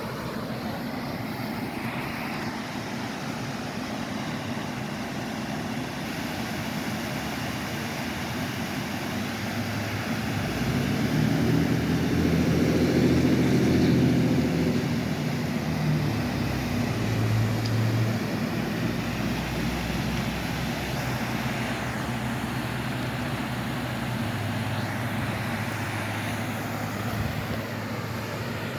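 Steady rush of falling water, with an engine drone passing by. The drone swells to its loudest about halfway through, then fades to a low hum.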